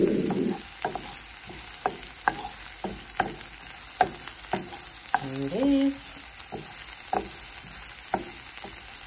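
Diced onion, courgette and chillies frying in oil with a steady sizzle, louder in the first moment, while a wooden spatula stirs them, knocking and scraping on the pan at irregular intervals. A brief rising tone sounds once about five seconds in.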